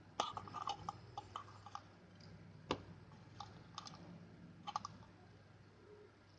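Irregular small clicks and taps in quick clusters, with one sharper click a little before the middle, over a faint low hum; no horn sounds.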